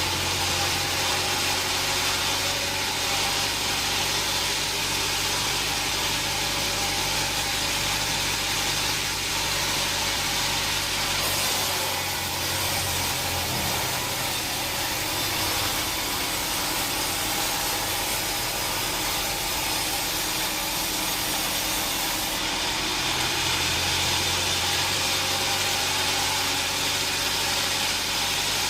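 Sawmill machinery running steadily, with a low engine hum under a constant hiss; the sound shifts about eleven seconds in and again a little past twenty-two seconds.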